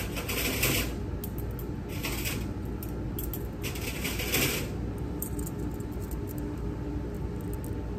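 Stainless steel surgical instruments jingling and clinking against one another in three short bursts, followed by a few light clicks, over a steady low hum.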